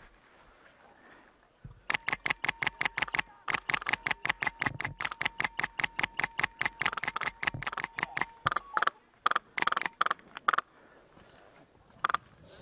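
Airsoft rifle firing on full auto, about a dozen shots a second. It starts about two seconds in with a long, nearly unbroken stream, then breaks into shorter bursts, with one more short burst near the end.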